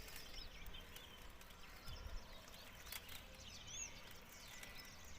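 Faint birds chirping, a few short calls scattered over a quiet background, with a soft click about three seconds in.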